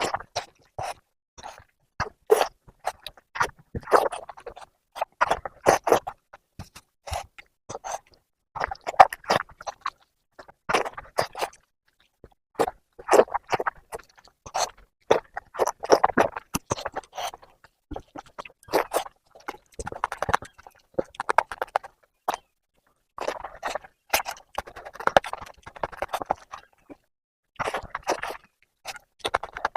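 Close-miked chewing and wet mouth smacking of someone eating mutton fat curry with rice, coming in clusters of quick clicks with short pauses between mouthfuls.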